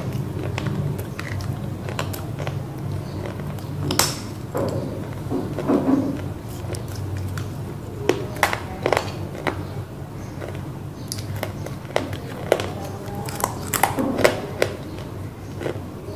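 Close-up biting and chewing of a dry slab of roasted clay: a series of sharp, crisp snaps as pieces break off, most of them in the second half, with softer crunching and chewing between.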